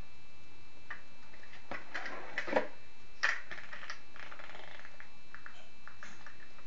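Handling noises of a cardboard toy box and a plastic toy car being fiddled with by small hands: scattered clicks, taps and rustles, with two sharper knocks in the middle.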